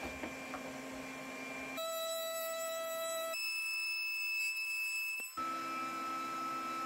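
Background music: held chords that change abruptly every second or two.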